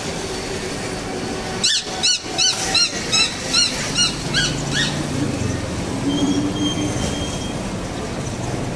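Street background noise with a run of about nine high-pitched squeaks, each rising and falling in pitch, about three a second, slowing and dropping lower toward the end.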